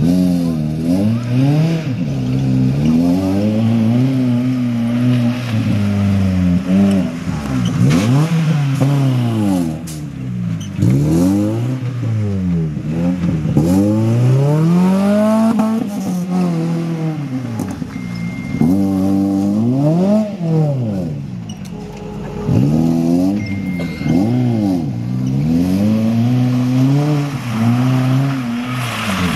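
Maruti Suzuki Gypsy's petrol engine revving hard and falling back again and again as it drives through deep mud, the pitch climbing and dropping every second or two, with one longer climb about twelve seconds in.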